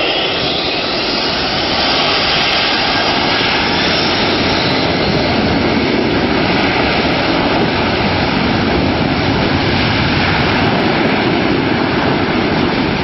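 An aircraft's engines running at high power at close range: a loud, steady rush of engine noise and blast air. A faint high whine climbs in pitch over the first two seconds.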